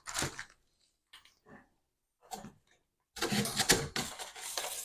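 A few faint soft handling sounds, then about three seconds in a dense rustling and crinkling of shelf-unit packaging being handled.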